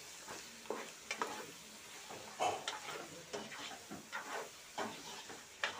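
Hand mixing raw chicken pieces with yogurt and spices in a non-stick pot: irregular short wet strokes, a few a second, with one louder stroke near the end.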